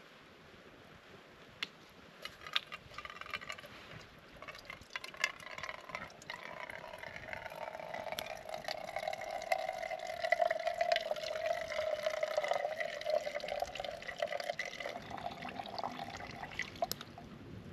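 Water running from a hanging filter bag into a mug. It starts as scattered drips and taps, then settles into a thin, steady trickle with a hollow ringing tone from about seven seconds in, and thins out near the end.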